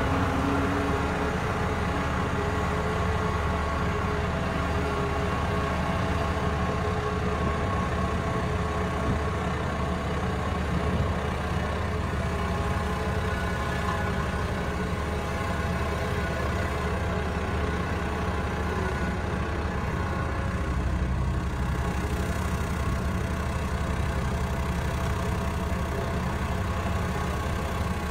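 Sakai single-drum road roller's diesel engine running steadily as the roller drives slowly over a crushed-stone base.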